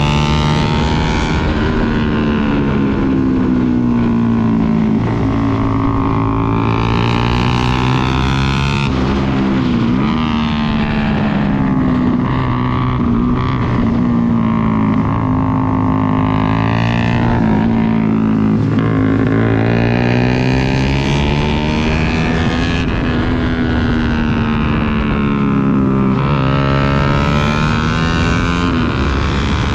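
Sport motorcycle engine revving hard at track speed, its pitch climbing through each gear and dropping sharply at several gear changes, with wind rushing over the microphone.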